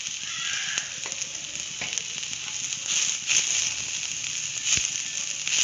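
Hummingbird-tree flowers, shallots and curry leaves sizzling as they sauté in oil in a wok, a steady hiss with a few sharp clicks or knocks.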